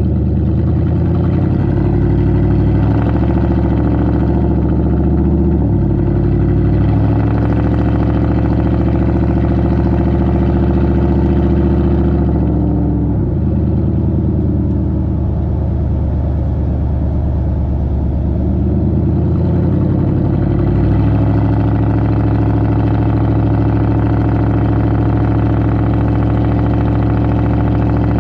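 1997 Ford F-150's 5.4 Triton V8 running through true-dual pre-cat straight pipes while driving, picked up at the rear bumper near the exhaust tips. The exhaust note is loud and steady, and its pitch steps to a new level a few times, most sharply about halfway through.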